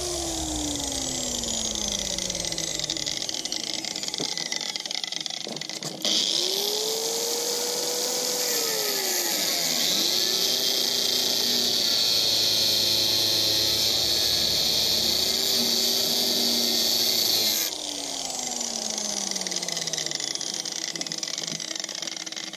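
Angle grinder winding down at the start, then switched on again about six seconds in and run against the steel body panel of a VW T3 van with a steady hiss and high whine, its motor dipping in speed when pressed in. It is released near the end and winds down again.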